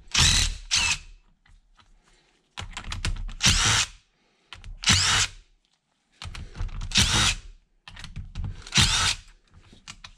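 Cordless DeWalt impact driver with a socket running in about five short bursts, backing bolts out of a rusty three-jaw lathe chuck.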